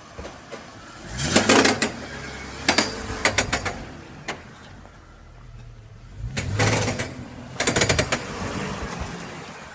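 2002 BMW X5 E53 3.0i giving four bursts of rapid knocking and rattling under acceleration, over a low engine hum. The owner is trying to identify the noise: it is still there after new CV joints and a new driveshaft.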